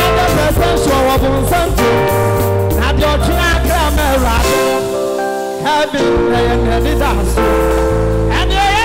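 Live gospel music: a man singing into a microphone over sustained chords and a deep bass line. The bass drops out for about a second and a half around the middle, then comes back in.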